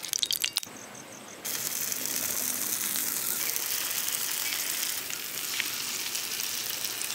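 Ghee sizzling in the wells of a hot paniyaram pan: a few clicks at the start, then a steady frying hiss from about a second and a half in.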